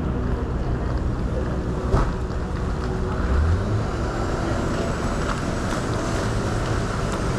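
Boat engine running steadily under way, with wind on the microphone and a single knock about two seconds in.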